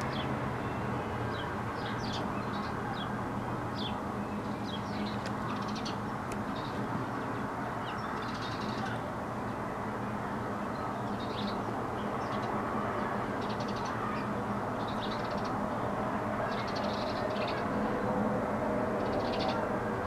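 Small birds chirping outdoors: short, high-pitched calls coming every second or two, some in quick clusters, over a steady outdoor hum.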